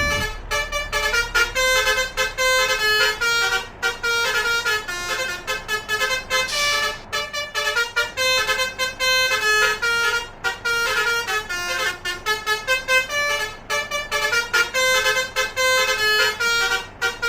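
Telolet basuri horn, a set of musical trumpet horns on a truck or bus, playing a rapid melody of short notes over and over. A brief hiss cuts in about seven seconds in.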